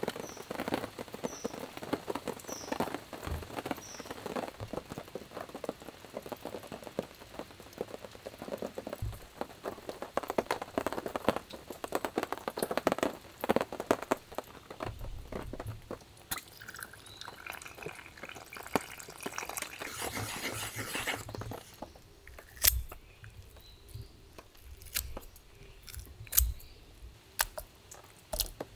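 Rain falling and dripping in a steady patter of drops, with a bird giving a short high chirp over and over, about every half second, in the first few seconds. About three quarters of the way in the patter gives way to quieter room sound with a few sharp, separate taps.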